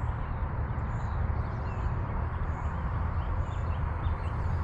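Steady low rumble of wind buffeting the microphone outdoors, with small birds chirping repeatedly in the background.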